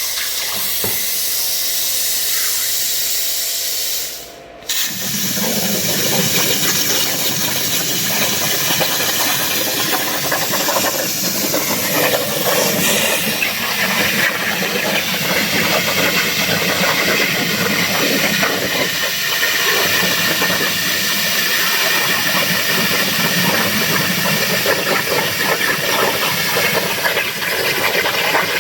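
CNC plasma cutter hissing as it cuts 14-gauge steel plate. About four seconds in the hiss drops out briefly, then returns louder and coarser and runs on steadily as the torch cuts.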